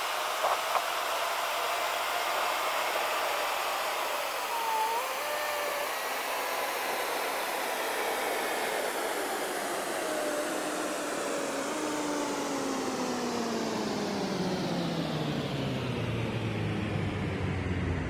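Steady road and wind noise inside a moving car's cabin. A few faint tones slide slowly lower in pitch as the whole sound drifts gradually deeper over the stretch.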